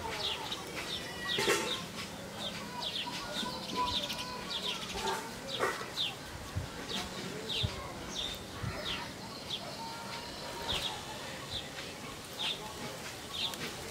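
Birds chirping over and over, short high falling chirps about once or twice a second. A few sharp snaps of red amaranth stems being broken and stripped by hand.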